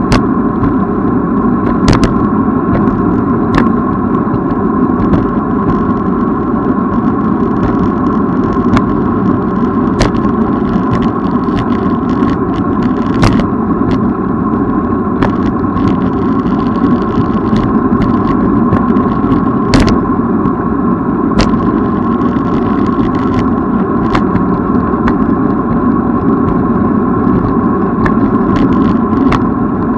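Riding noise from a bicycle in motion: a steady loud rumble of tyres and wind with a constant hum, broken every second or few by sharp clicks and rattles.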